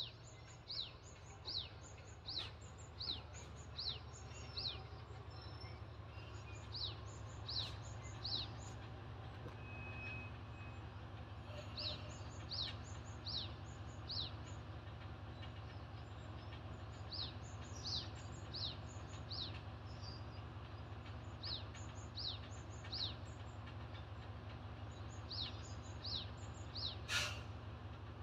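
Ibara Railway IRT355 diesel railcar running with a steady low engine drone as it stands, while a bird calls over it in runs of short falling whistles, about two a second. A brief sharp sound, the loudest moment, comes about a second before the end.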